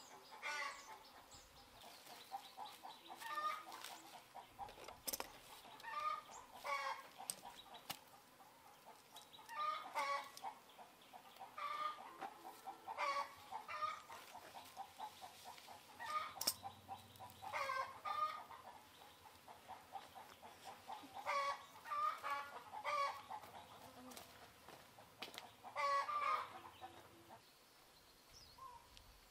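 Chickens clucking in short bursts every two to three seconds, with one sharp click about halfway through.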